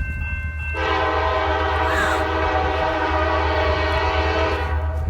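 Train horn blowing one long steady chord, starting about a second in and holding for about four seconds before cutting off near the end, over the low rumble of the oncoming train.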